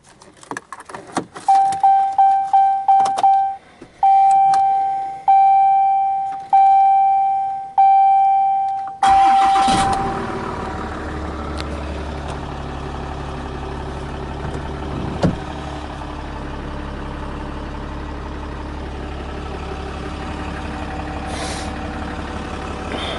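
Key clicks, then a dashboard warning chime sounding repeatedly, first quickly and then about once a second. About nine seconds in, the Ram 2500's 6.7-litre Cummins inline-six turbo-diesel is started. It settles into a steady diesel idle.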